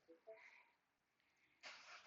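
Near silence broken by a few short, quiet electronic beeps at different pitches, then a sudden rush of noise about one and a half seconds in.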